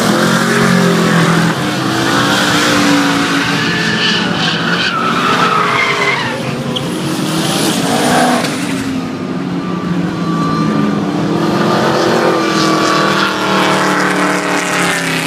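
Car engine held at high revs, rising and falling, while the driven tyres spin and screech on the tarmac in a smoky burnout.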